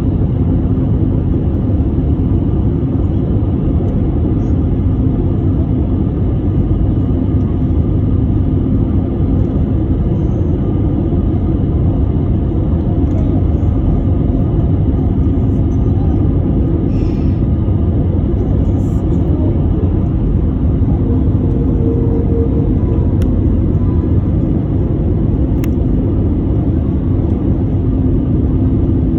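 Airbus A320 cabin noise: a steady, loud low rumble with a faint constant hum running through it.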